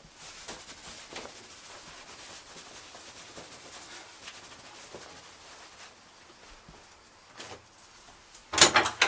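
Terry towel rubbing over hair, a steady scrubbing rustle that stops about six seconds in. Near the end comes a short, loud clatter of knocks.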